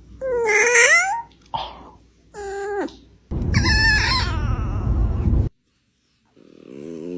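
Dogs yawning out loud, each yawn a whining, squeaky call that bends in pitch. Several come one after another with gaps between them. The longest and loudest is in the middle and stops suddenly, and a lower one follows near the end.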